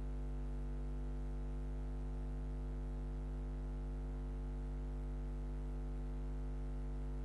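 Steady low electrical hum, a mains buzz carried in the broadcast audio, with no other sound heard.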